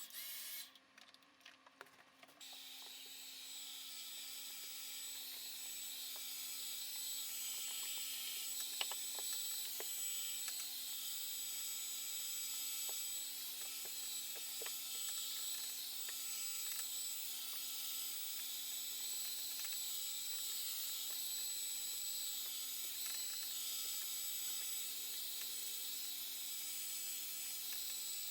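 An electric hair dryer blowing steadily, a constant rushing hiss over a low motor hum. It cuts out briefly at the start, then comes back and grows louder over the next few seconds, with a few faint clicks along the way.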